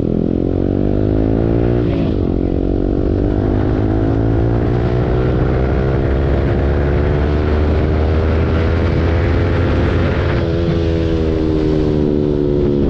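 Yamaha R15 V4's 155 cc single-cylinder engine through an aftermarket Akrapovic full-system exhaust, under acceleration. The revs climb, drop at a gear change about two seconds in, then rise slowly for several seconds before falling away near the end.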